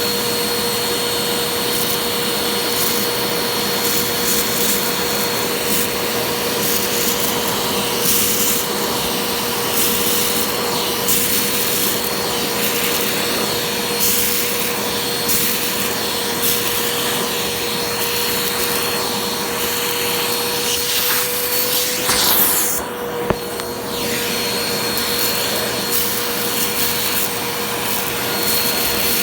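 Bissell vacuum cleaner running with a steady whine, sucking up loose rice through an attachment tool, with grains crackling as they are drawn in. About 22 seconds in the whine rises slightly and the hiss briefly drops away.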